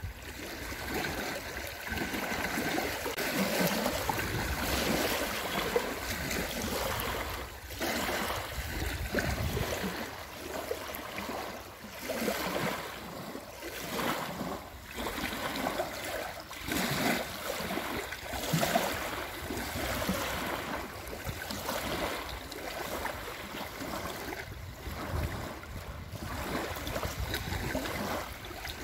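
Small lake waves lapping and breaking on a sandy shore, washing in every second or two.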